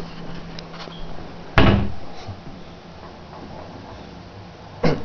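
A sudden loud thud about a second and a half in, and two more close together near the end, over a faint steady low hum.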